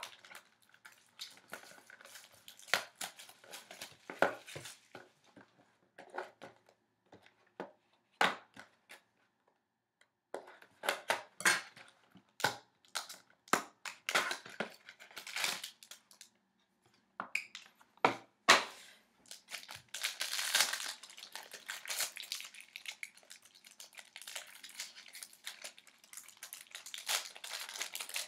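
Packaging of a 2014-15 SP Game Used hockey card box being torn open and handled: irregular crinkling, rustling and sharp clicks of wrapping and cardboard. The crinkling gets busier and denser in the second half.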